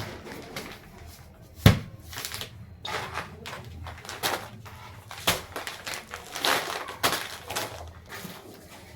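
Packaging and shopping bags rustling and crinkling as groceries are handled, with a sharp knock a little under two seconds in as something is put down.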